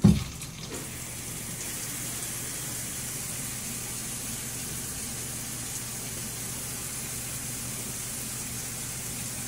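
Dual shower head spraying in a tiled shower: a steady hiss of thin jets, with a steady low hum underneath. The flow is weak, a case of low shower pressure. A brief low thump comes right at the start.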